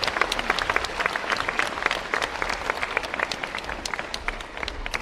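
Audience applauding, many hands clapping densely and irregularly, thinning slightly toward the end.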